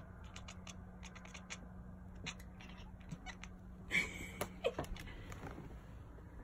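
Tabby cat chattering at a bug she can't reach: a rapid string of short clicking sounds, several a second, with one louder chirp about four seconds in.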